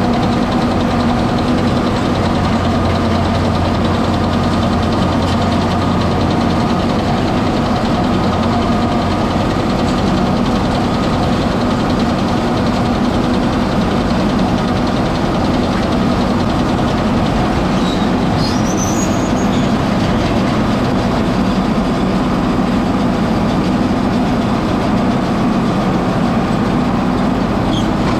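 Tractor engine running steadily under load while it pulls and drives a round baler through the hay. A brief high chirp sounds about two-thirds of the way through.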